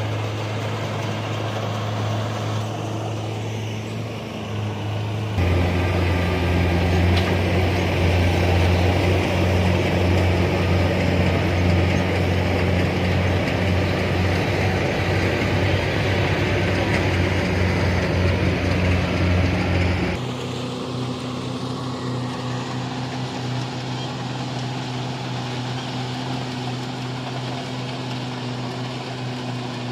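Kubota rice combine harvester's diesel engine running steadily, with sudden shifts in pitch and loudness about five seconds in and again about twenty seconds in.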